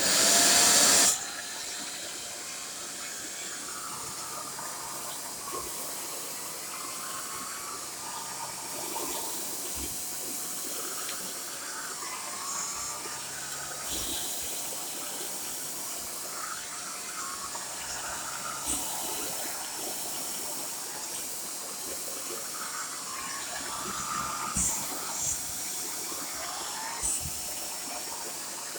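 Shark corded upright vacuum cleaner switched on: loud for about the first second, then running steadily with an airy whooshing hiss, and short rising whistles every few seconds.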